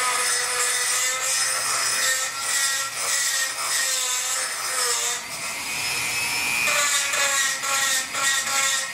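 Dremel 4000 rotary tool with a porting bit grinding inside the cylinder port of a Chinese 80cc two-stroke bicycle engine, its motor whining steadily and wavering in pitch as the bit bears on the metal.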